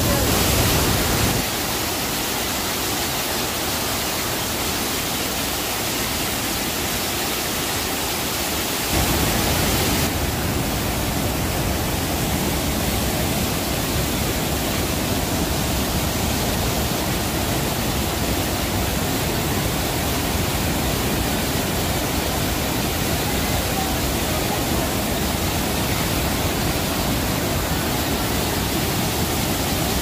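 Rhine Falls' white water rushing: a loud, steady noise of falling water. The deep low rumble thins out about a second and a half in and returns about nine seconds in.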